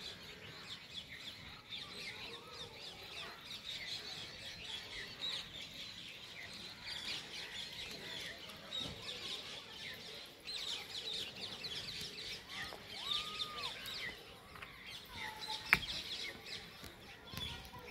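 Many birds chirping and twittering together at dusk, a dense high chorus, with a few slower, lower arching calls in the last few seconds. One sharp click sounds shortly before the end.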